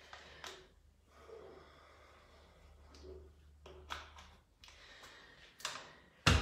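Faint handling of a small plastic water bottle, its cap being twisted, with breathing after exercise. A single sharp knock comes near the end.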